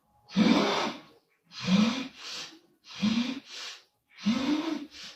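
A woman snoring: four loud snores about 1.3 s apart, each followed by a shorter, softer breath.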